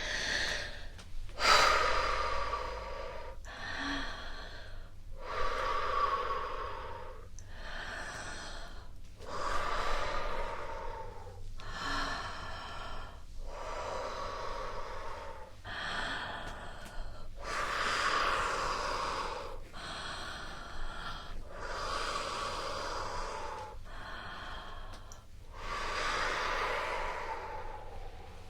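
A woman breathing slowly in and out, about a dozen audible breaths of one to two seconds each, with short pauses between them.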